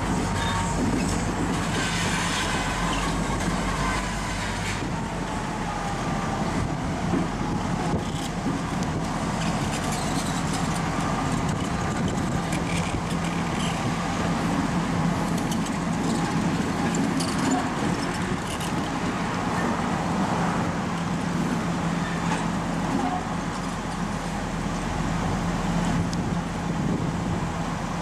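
Diesel locomotive engine of an Angelina & Neches River Railroad unit running with a steady low drone as it moves slowly past with its short train. A faint, wavering wheel squeal is heard in the first few seconds.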